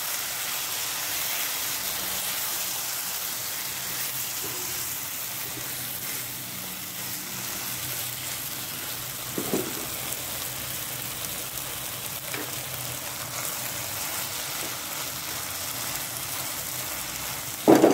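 Tomatoes, green chillies and egg sizzling in a hot nonstick frying pan with a steady hiss, stirred with a spatula.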